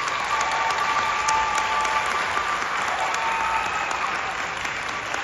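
Audience applauding steadily after a choir song ends.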